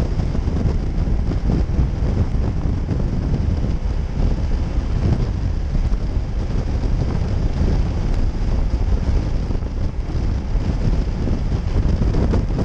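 Wind buffeting a helmet-side camera microphone on a motorcycle at highway speed: a loud, steady, fluttering rush, with the bike's engine and road noise underneath.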